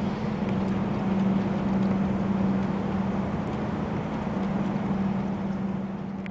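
A vehicle engine running steadily: a constant low hum over an even background noise.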